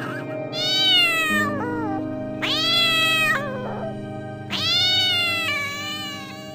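Domestic cat meowing three times, each meow long and drawn out, over background music.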